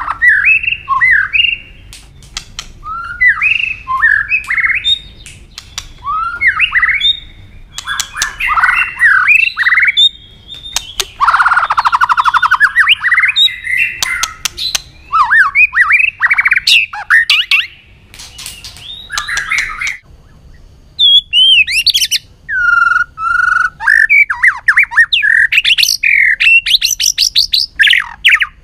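White-rumped shama singing a loud, varied run of whistled phrases mixed with sharp clicking 'tạch' notes, with a harsh rasping stretch about eleven seconds in and a short pause later on.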